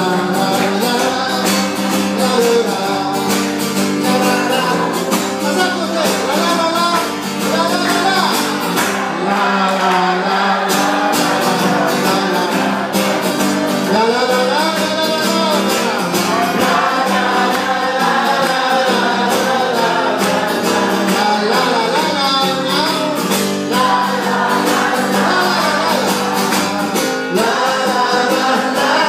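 A man singing into a microphone while strumming a steel-string acoustic guitar, a live solo performance.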